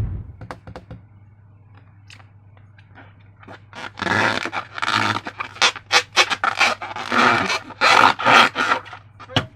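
Slime and trapped air squelching and sputtering in a balloon as it is squeezed. Faint sticky clicks come first. From about halfway through, a quick run of loud, rough squelches follows, two or three a second.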